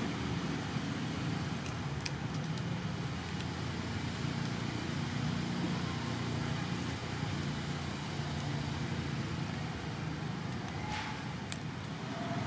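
Steady low rumbling outdoor background noise, with a few faint clicks about two seconds in and again near the end.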